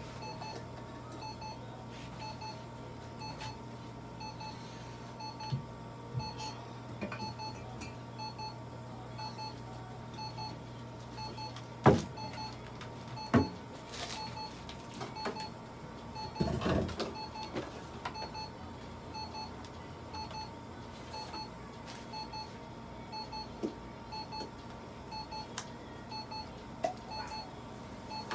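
Veterinary laser therapy unit giving a steady string of short, evenly repeating high beeps while it emits during treatment. A low hum runs under the first third, and two sharp knocks near the middle, followed by a brief rustling clatter, stand out as the loudest sounds.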